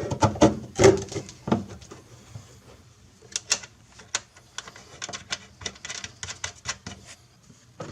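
Sharp clicks and taps of hands working the plastic taillight and its fasteners: a few louder knocks at first, then a fainter, fairly steady run of clicks, a few a second.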